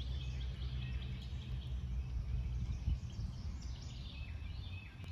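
Outdoor ambience: birds chirping and singing in short repeated notes over a steady low rumble.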